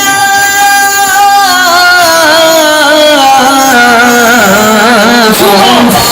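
Loud devotional-style music played over a large loudspeaker sound system. A single melody line holds a long note, then slides downward through wavering, ornamented turns.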